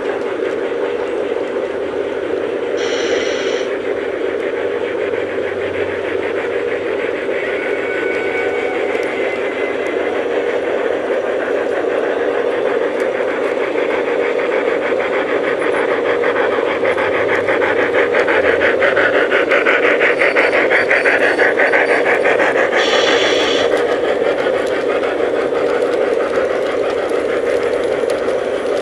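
G-scale model trains running on a garden layout: a steady motor hum with fast rattling clicks of wheels over the track, louder through the middle. Two brief high tones sound, about three seconds in and again near twenty-three seconds.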